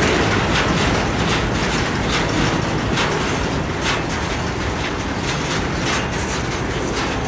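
Freight train of centerbeam flatcars rolling past, steel wheels running on the rails with a steady rumble and a clickety-clack about once a second.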